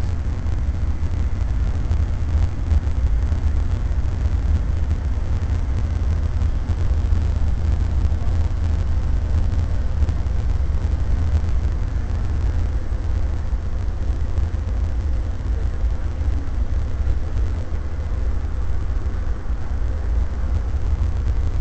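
Steady low rumble of a coach travelling at motorway speed, as heard inside the passenger cabin: engine and road noise with no breaks or changes.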